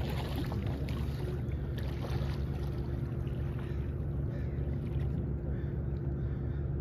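A boat motor running at a steady low drone, with a hum held at one pitch and no change in speed.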